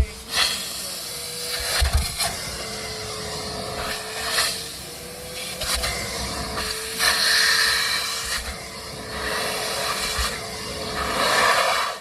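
Wet/dry shop vacuum running with a steady motor whine while its nozzle scrapes and sucks over car seat upholstery, the hiss rising and falling with each pass.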